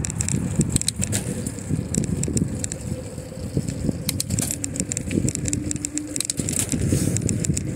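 Bicycle riding noise: a continuous low rumble with scattered rattling clicks, as the bike rolls along the street.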